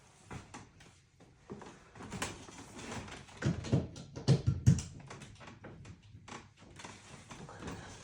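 Handling noise from a hair dryer being picked up and readied: scattered clicks and knocks, with a quick run of four or five low thumps about halfway through.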